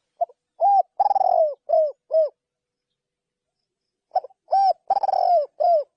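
Spotted dove cooing: two calls about two seconds apart, each a string of short rounded coos with a longer, rougher note in the middle.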